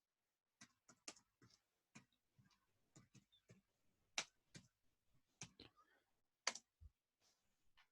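Faint, irregular clicks of computer keys being typed, with two louder key strikes about four and six and a half seconds in.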